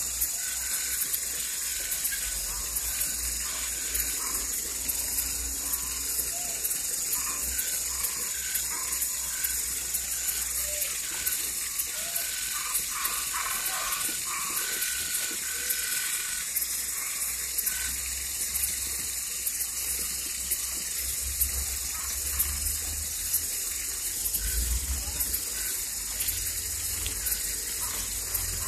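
Night chorus of frogs and tree frogs: a steady high-pitched trilling throughout, with scattered short calls that are busiest about halfway through. A low rumble sits underneath in the second half.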